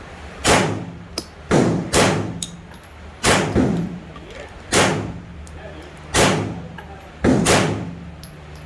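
Gunshots fired one at a time at a shooting range: about nine loud shots at an uneven pace, some in quick pairs and others a second or more apart, each with a short ringing tail.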